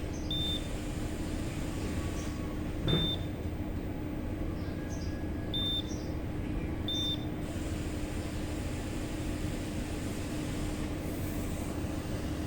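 An electronic industrial buttonhole sewing machine's control panel gives four short high beeps, spaced a second or two apart, over the machine's steady electrical hum. A light click comes with the second beep.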